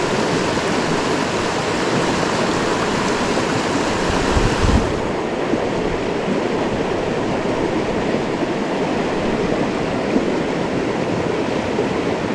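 A small creek rushing over rocks close to the microphone: a steady water noise. There is a dull bump about four and a half seconds in, after which the high hiss drops away.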